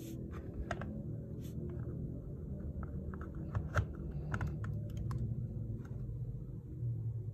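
Irregular light plastic clicks and taps as a figure's feet are pressed and settled onto its hexagonal plastic display base; the sharpest clicks come a little past halfway.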